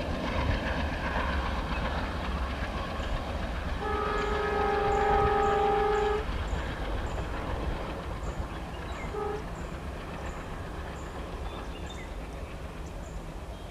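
ALCO WDM3D diesel locomotive and its passenger train rumbling away and fading into the distance. The locomotive's horn sounds one long steady blast about four seconds in and a short toot about five seconds later.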